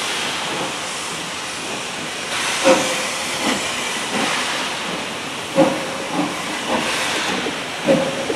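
Steam locomotive pulling slowly away, a steady hiss of steam with slow, uneven exhaust beats starting about two and a half seconds in, roughly one a second.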